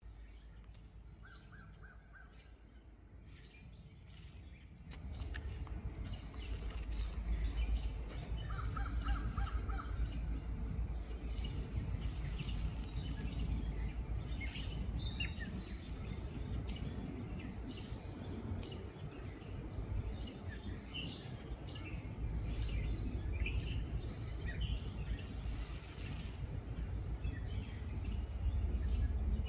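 Birds chirping and calling over a steady low background rumble, which grows louder about five seconds in.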